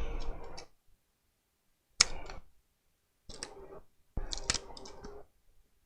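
Short bursts of clicking and scraping, four in all with gaps between, as tools pry the cracked digitizer glass of a Samsung Galaxy Tab A tablet away from its adhesive.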